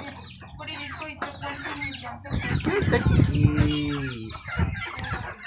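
Native Indian chickens clucking repeatedly, with a louder stretch of low rustling and thumps in the middle as a bird is handled.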